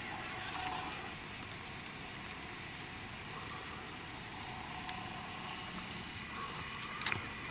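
Steady high-pitched drone of summer insects in the woods, unbroken throughout.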